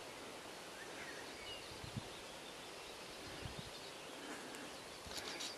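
Faint outdoor background noise with a few short, faint bird chirps, a couple of low thumps, and a cluster of sharp clicks near the end.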